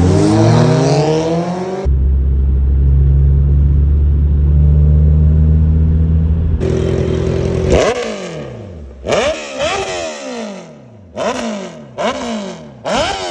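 Car engines at hard throttle: a rising engine note accelerating for about two seconds, then a loud steady engine drone for several seconds. From about eight seconds in, a run of engine notes that drop and climb again roughly once a second, like repeated revving.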